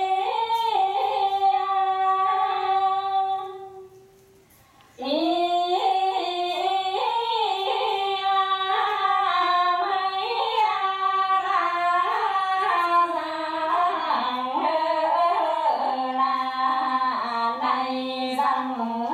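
Two women singing a quan họ folk song from Bắc Ninh as a duet, in long phrases with many turns of pitch. One phrase ends about three and a half seconds in, and after a short pause the singing starts again about five seconds in.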